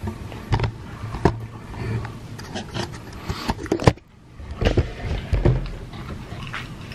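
Camera handling noise as the camera is set back on its broken stand: irregular sharp clicks, knocks and scraping over a low rumble, with a few low thumps about five seconds in.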